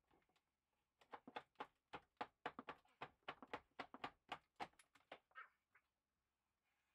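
A fast, irregular run of faint cracks and knocks, several a second, for about five seconds, as rotted ceiling material is pulled and broken apart by hand overhead.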